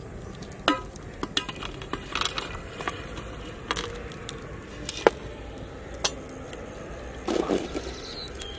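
Irregular sharp clicks and light metal clinks from a large steel cooking pot and its lid, which is heaped with burning charcoal, with a short scrape near the end.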